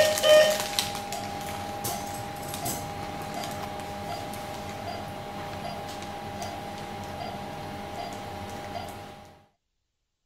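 Operating-theatre equipment during a knee arthroscopy: two short electronic beeps right at the start, then a steady high electronic tone with faint ticks, which cuts off suddenly about nine seconds in.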